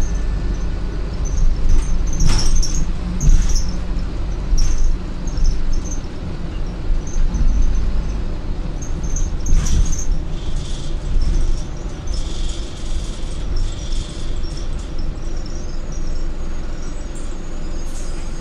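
Inside an Optare Solo M950 midibus on the move: a steady low engine and road rumble with rattling knocks and high squeaks from the body panels and fittings. A thin high whine joins in for a few seconds in the middle, and the rumble eases a little near the end.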